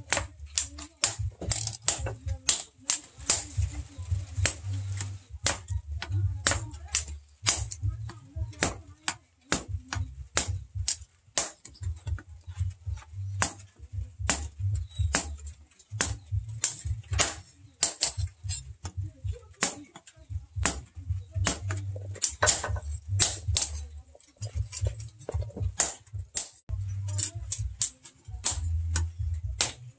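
Hand hammer striking a red-hot steel axe head on a small steel post anvil: sharp, irregular blows, often two or three a second. A low rumble comes and goes underneath.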